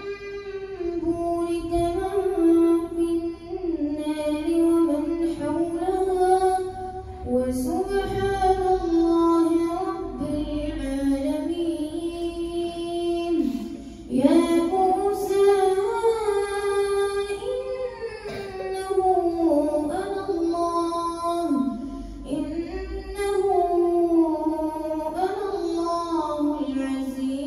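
A boy's voice reciting the Quran in melodic tajweed style, leading Tarawih prayer over a microphone and loudspeaker. He sings long held, ornamented notes in phrases separated by brief pauses for breath.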